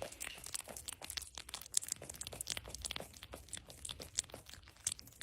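Close, irregular crunching and crackling made of many quick clicks.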